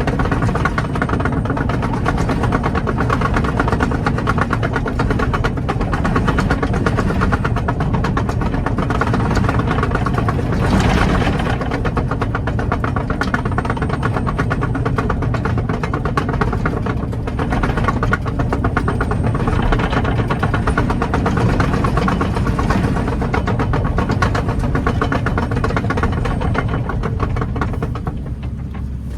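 Kobelco 20-tonne excavator's diesel engine running steadily under load while the machine tracks, with a fine rapid clatter over the drone. There are brief louder surges about a third of the way in and again past the middle.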